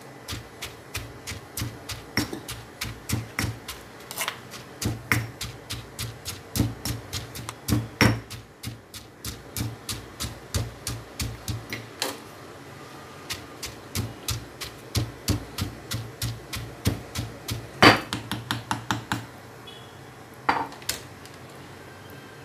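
Stone pestle pounding coconut sambal in a stone mortar: a run of strikes, about three a second, with a short break about twelve seconds in. The loudest strike comes near eighteen seconds, and the pounding stops a little after, with two last knocks near the end.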